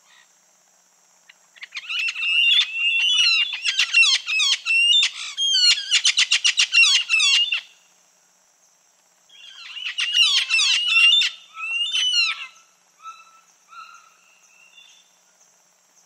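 Red-fan parrot (hawk-headed parrot) calling in fast series of repeated calls. A first bout lasts about six seconds and quickens near its end. A second, shorter bout comes a couple of seconds later and trails off into a few fainter notes.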